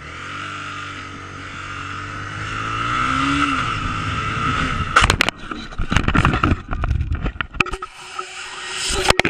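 Sport motorcycle's engine pulling away and accelerating, then about five seconds in a sudden loud crash as the bike hits a car, followed by a jumble of knocks and scraping as the bike and rider go down.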